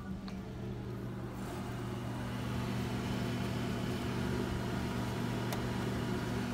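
Shaker incubator running, rotating at about 60 revolutions per minute: a steady electric hum from its motor and fan under a rushing hiss of moving air, which grows a little louder about a second and a half in.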